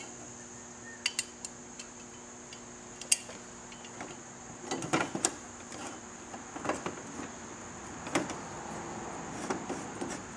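Scattered, irregular light metal clicks and taps as a metal license plate mount is handled and fitted back onto a motorcycle's rear fender.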